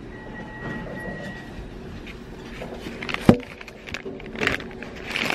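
Steady room background noise, with a faint high tone in the first second or so, one sharp knock a little over three seconds in, and a few clattering knocks after it.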